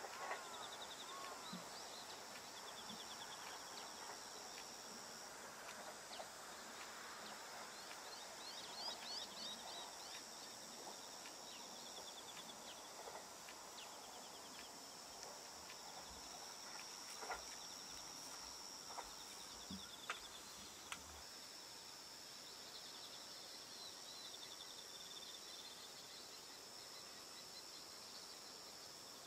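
Faint outdoor ambience of insects chirping and trilling steadily at a high pitch in rhythmic pulses, with a bird calling briefly at the start and a few soft clicks about two-thirds of the way through.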